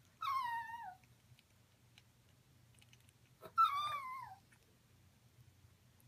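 Dog whining twice, about three seconds apart: each whine is a wavering call of under a second that falls in pitch. Faint ticks of an African grey parrot's beak working at an orange fall between the whines.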